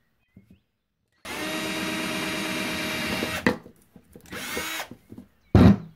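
Cordless drill running steadily for about two seconds as it bores a pilot hole into cured epoxy resin, stopping with a click. A shorter noisy burst follows, and a loud knock comes near the end.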